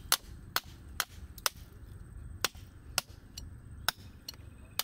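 A ribbed steel rod knocking against oysters on mangrove roots to chip them loose: about eight sharp, clicking strikes of metal on shell, unevenly spaced.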